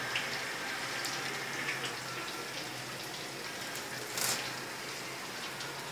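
A cleaver cutting through a fried bread pakora on a wooden chopping board: one short cut about four seconds in, with a few light ticks, over a steady hiss.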